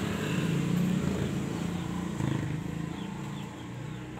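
A vehicle engine running steadily, slowly fading away.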